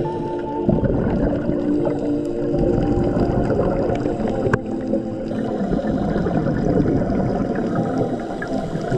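Underwater sound from a diving camera: the low gurgling rush of water and scuba divers' exhaled bubbles, under sustained notes of background music.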